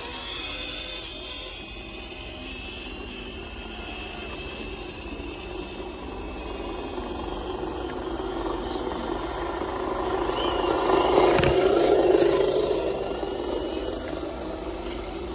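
Electric motors and gear drivetrains of scale RC rock crawlers whining as the trucks crawl over a dirt trail. The sound swells as one truck passes close, loudest about eleven to twelve seconds in, then fades.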